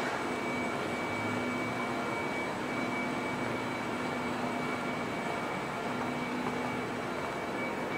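Steady hum and rush of an empty underground rail platform's background noise, with a few faint constant tones running through it.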